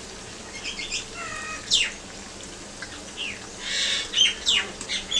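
Battered bread slices deep-frying in hot oil with a steady low sizzle. Birds chirp over it several times in short falling calls, and these chirps are the loudest sounds.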